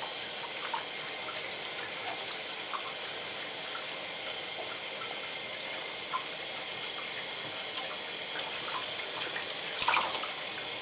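Water running steadily from the tap into a bathtub, with a few faint splashes as a wet Maltese puppy is washed in the shallow water.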